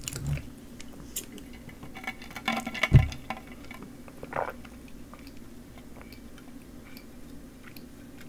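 Iced chocolate milk sipped through a straw close to the microphone: wet slurps and mouth sounds, with a loud low thump about three seconds in and another slurp a little later.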